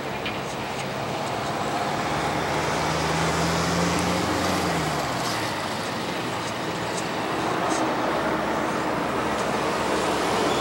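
Boeing 737-800's twin CFM56 turbofan engines at takeoff power during the takeoff roll: a broad, rushing jet roar that builds over the first few seconds. A low tone under it sinks in pitch about five seconds in.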